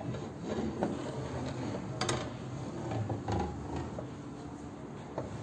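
Hand-cranked tabletop printing press rolling its bed and felt blanket through the steel rollers, a steady low mechanical rumble with a few light knocks along the way.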